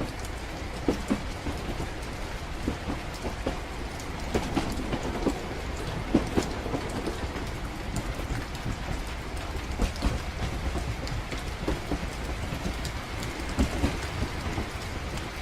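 Train-ride ambience: a steady low rumble of a moving train carriage with rain pattering, and scattered knocks and clacks through it.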